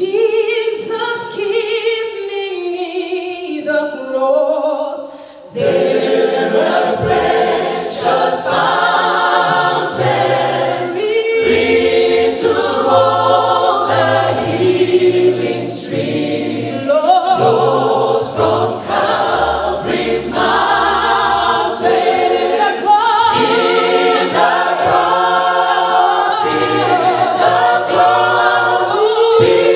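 Choir singing a cappella in several parts. A few higher voices open it, and the full choir with low bass voices comes in about five and a half seconds in.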